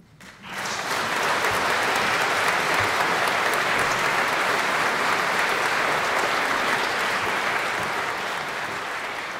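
Audience applauding. It starts suddenly about half a second in, holds steady, and eases a little near the end.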